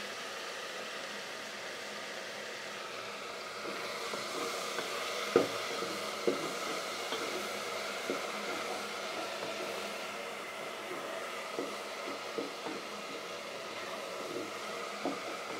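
Tomatoes cooking in a steel pot on a gas burner: a steady hiss, with a few light clicks and knocks, the loudest about five seconds in.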